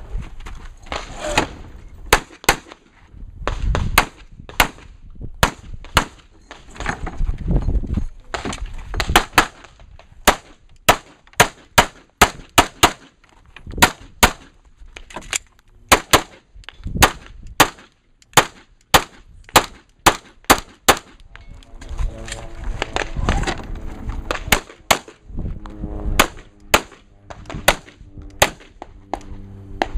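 Handgun fire during a timed practical-shooting stage: dozens of sharp pistol shots, many in quick pairs, with short pauses between the strings.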